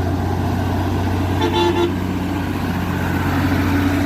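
A heavy road vehicle's engine drones steadily, and a vehicle horn gives one short toot about a second and a half in.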